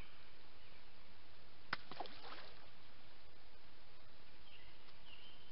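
A single short splash about two seconds in, a sharp slap followed by bubbly gurgles, against a steady outdoor hiss of the flowing river. Small birds chirp briefly near the end.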